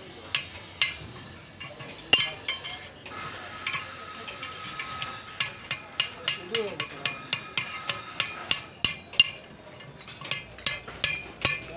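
Irregular sharp metallic taps and clinks of hand tools on metal parts, with a thin steady ringing tone for a couple of seconds in the middle.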